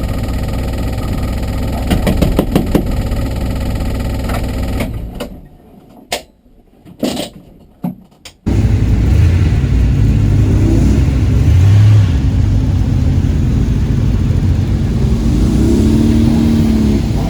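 Car engine running steadily, then the sound falls away for about three seconds with a few knocks. It comes back abruptly as a louder, rumbling engine sound that rises and falls in pitch twice.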